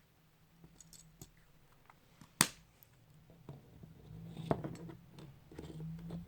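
Small plastic Kinder Surprise toy pieces being handled and snapped together: scattered light clicks, with one sharp snap about two and a half seconds in and another click a couple of seconds later.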